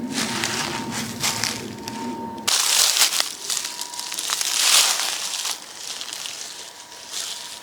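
Crunching and crackling noises in irregular bursts, loudest in the middle. A low background rumble drops out abruptly about two and a half seconds in.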